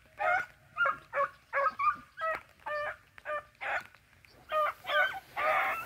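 Rabbit beagles giving voice on a track: a steady string of short, pitched hound barks, about two a second.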